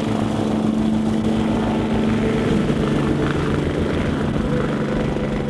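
MBB/Kawasaki BK117 twin-turbine helicopter lifting off and climbing away. A steady engine whine sits over the low, pulsing beat of the rotor.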